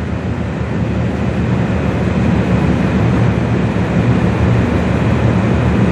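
Steady low drone of a Great Lakes bulk freighter's engines and machinery as it passes, with a rushing haze over it.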